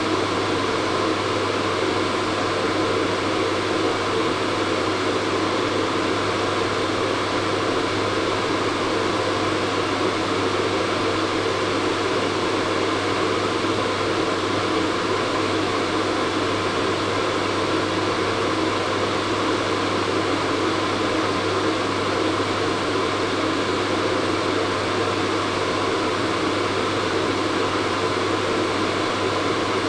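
Hair dryer running steadily: an even rush of blown air over a low motor hum, unchanging throughout.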